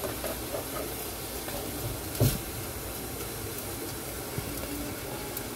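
Steady hiss and low hum from the stovetop while oil heats in a nonstick pan, with a single knock about two seconds in.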